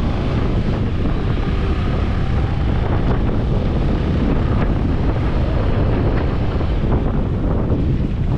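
Wind buffeting the camera microphone: a loud, steady rumble that is heaviest in the low end.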